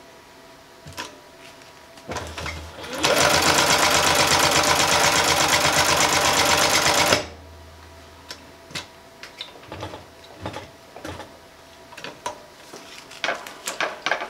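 Tuff Sew walking-foot industrial sewing machine, servo-driven, stitching a seam through umbrella fabric: the motor hum comes up, then a rapid, even clatter of stitches runs for about four seconds and stops abruptly. Light clicks and fabric handling follow.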